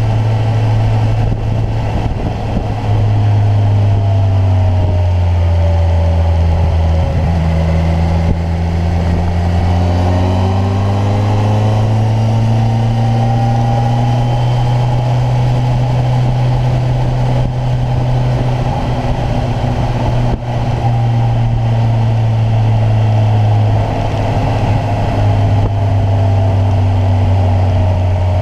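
Kawasaki Ninja 1000's inline-four engine, heard from the moving bike. Its note drops for a few seconds, then climbs as the bike accelerates and holds steady at cruising speed, easing off again near the end.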